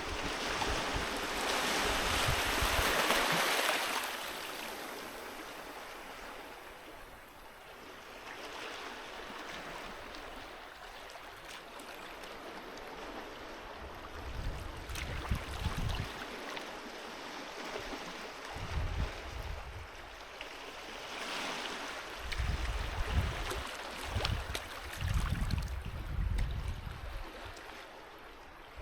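Sea waves breaking and washing up the shore, a loud surge in the first few seconds, then quieter wash that swells again several times. Low rumbling thumps come through in the second half.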